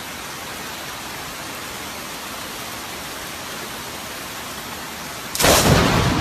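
Steady hiss of heavy rain, then about five seconds in a sudden loud, sharp clap of close thunder from a lightning strike.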